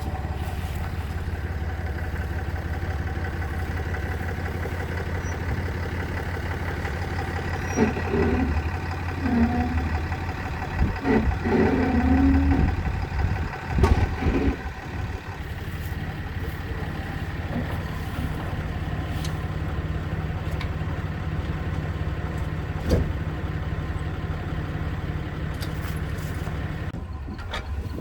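Dodge 3500 diesel pickup truck running steadily on the road, with a few short louder sounds about a third of the way in.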